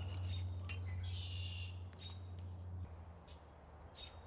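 Faint birds chirping, with a short high call about a second in, over a low steady hum that fades about three seconds in. A few light clicks and knocks from a caulking gun and a cedar board being handled.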